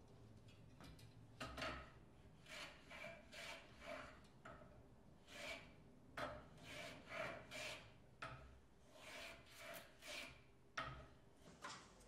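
Metal hand plane shaving a strip of wood on a workbench: a quick run of short planing strokes, about two a second, starting about a second and a half in.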